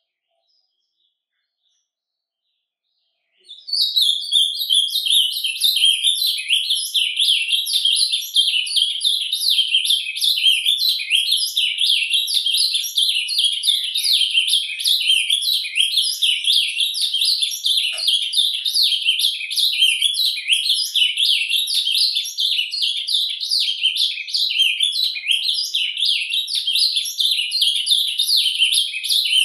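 Male ultramarine grosbeak (azulão) singing its surdina, the rambling continuous subsong: a rapid unbroken twittering warble that starts about three and a half seconds in.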